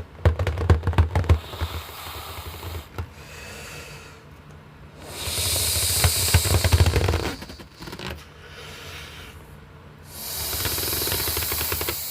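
Cartoon inflation sound effects: rushing air hiss with a fast rattle, first a short rattling burst, then two longer loud hissing spells about five and ten seconds in.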